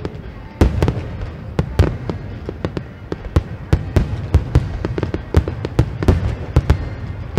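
Aerial fireworks shells bursting in a rapid, irregular barrage, several booms a second, with a loud boom under a second in.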